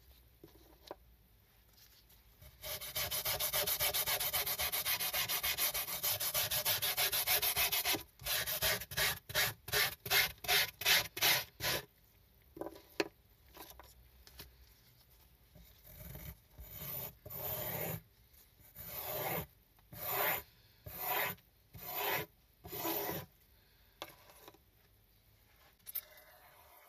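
Hand-held cleaning tool rubbing over a small wet, soapy rug: about five seconds of continuous fast scrubbing, then separate strokes, quick at first and slowing to about one a second.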